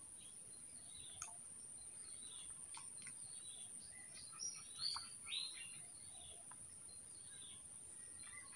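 Small birds chirping in short scattered calls, loudest around the middle, over a steady high-pitched whine.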